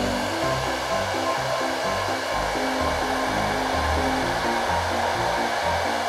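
Hair dryer blowing a steady hiss of air, over background music with low, stepping notes.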